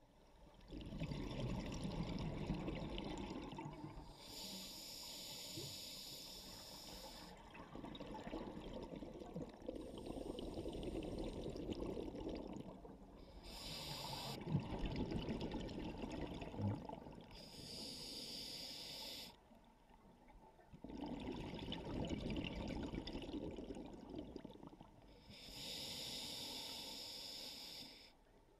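Scuba diver breathing underwater through a regulator: a hissing inhale followed by a long gurgle of exhaled bubbles, about four breaths in a slow, even cycle.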